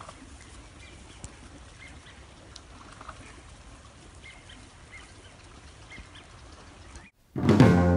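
Wild turkeys feeding, giving soft, scattered short clucks over a faint outdoor background hiss.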